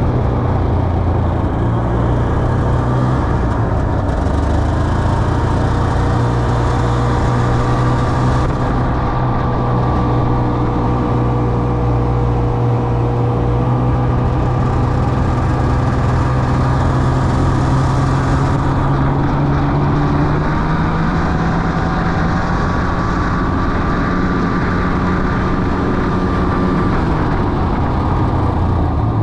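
Ski-Doo Expedition 550 snowmobile's fan-cooled two-stroke twin engine running steadily under way. Its pitch climbs a little past the middle, then falls off near the end as the sled slows.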